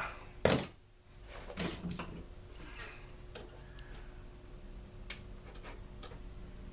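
Knocks and clicks of tools and plastic housing parts being handled while a Stihl BG 56 C leaf blower is taken apart at its carburetor: one sharp knock about half a second in, a short rattle a second later, then a few small clicks, over a faint steady hum.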